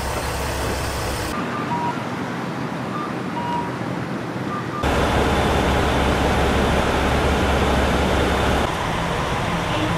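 Street and traffic ambience, then from about halfway a louder, steady low rumble of a diesel railcar's engine heard inside the driver's cab.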